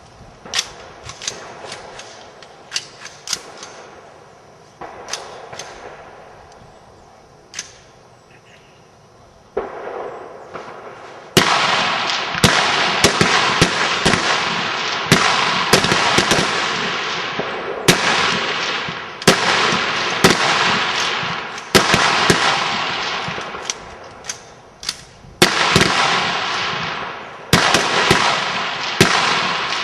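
High-power rifles firing along a firing line during a rapid-fire string. At first there are scattered single shots with echoing tails. From about eleven seconds in, many rifles fire in quick succession and the shots overlap, with a brief lull near twenty-five seconds.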